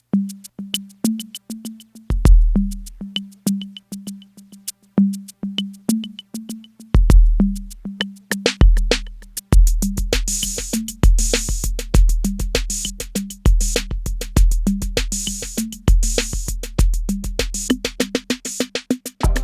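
Sampled drum-machine beat played from an Ensoniq sound library on an Ensoniq ASR-10 sampler, recorded direct from its outputs. A rhythm of short pitched drum hits and clicking hi-hats has deep kick drums dropping in about two seconds in. From about ten seconds in, a steady kick pattern and brighter cymbal hiss fill it out.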